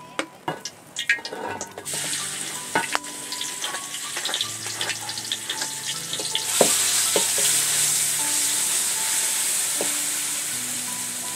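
Food frying and sizzling in a pan as it is stirred, with scattered clicks of the utensil against the pan. The sizzle starts about two seconds in and gets louder about halfway through, over soft background music.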